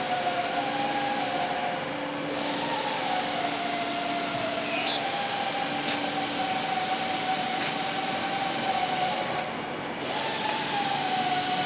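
Centerless grinder running: a steady whine that wavers slightly in pitch, over an even machine hiss.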